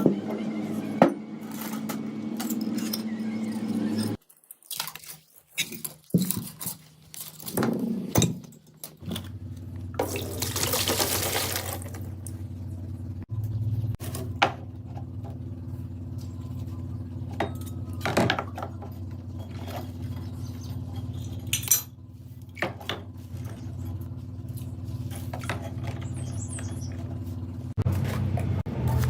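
Workshop sounds: a steady machine hum that cuts out about four seconds in and starts again about five seconds later, with scattered metal clinks and knocks and a brief hiss about ten seconds in.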